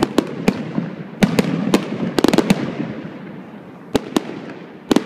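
Fireworks display: a string of sharp bangs from aerial shells bursting, with a rapid cluster a little past two seconds in, over a steady background noise.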